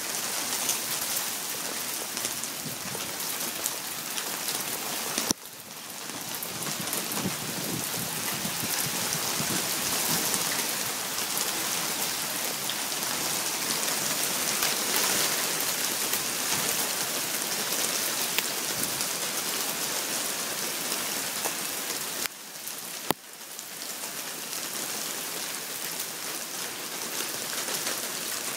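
Hailstorm: a dense, steady hiss of small hailstones pattering on paving, gravel and grass. It drops away briefly twice, about five seconds in and again near twenty-two seconds, each time with a sharp click.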